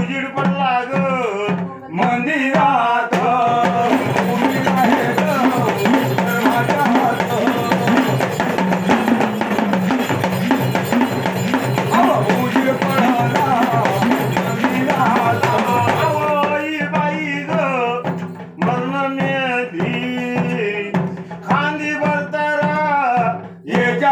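Marathi folk music: a hand drum keeps a steady beat under a melody instrument through an instrumental interlude. Sung lines come in the first few seconds and return from about two-thirds of the way through.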